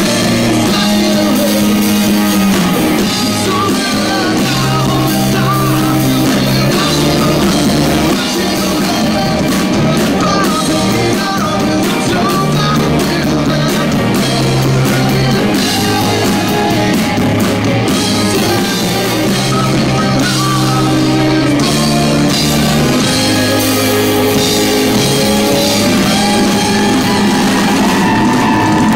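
Live rock band playing loudly: electric guitar and drums with a male lead vocal in parts, heard from within the audience.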